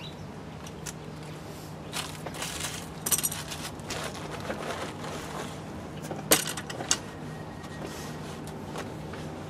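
Small metal parts clinking and clicking as hardware is handled, a few scattered clicks with the sharpest about six seconds in, over a faint steady low hum.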